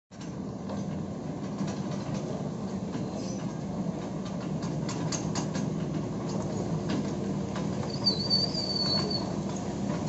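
SANY crawler excavator travelling, its diesel engine running steadily while the steel tracks clank and rattle. A brief high squeal comes about eight seconds in.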